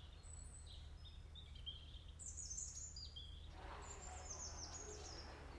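A small bird singing: several short phrases of quick, high chirps, each run stepping downward in pitch, over a faint steady low hum.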